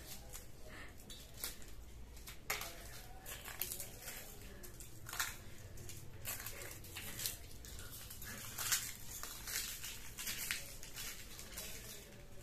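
Faint, irregular crackles and small clicks of hand food preparation: dried red chillies being broken and crumbled by hand into mashed potato and onion on a steel plate, with the occasional tap of a knife on the plate.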